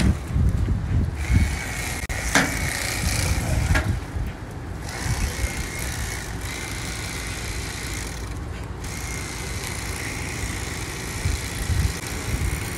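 Corded electric fillet knife running with a steady high whine while cutting a redfish fillet along the backbone. The whine breaks off briefly a few times, there are two sharp clicks in the first four seconds, and a low rumble sits underneath.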